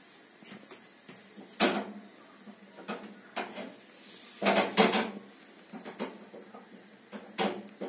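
Irregular knocks and clicks from a cat nosing and licking at a linoleum floor where valerian was dripped. The loudest is a close pair of knocks about four and a half seconds in.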